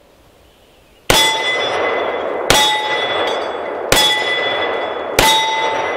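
Four shots from a stainless Desert Eagle .50 Action Express pistol with an integrated muzzle brake, the first about a second in and the rest about a second and a half apart. Each shot is followed by the long ringing of struck steel plate targets.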